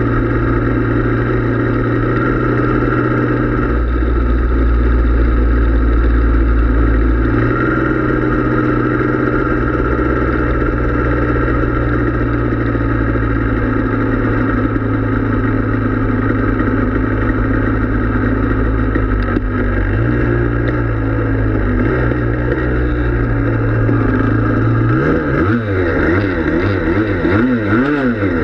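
Yamaha Blaster's two-stroke single-cylinder engine running under way at a steady pace, its pitch stepping a couple of times early on. Near the end it revs up and down several times in quick succession.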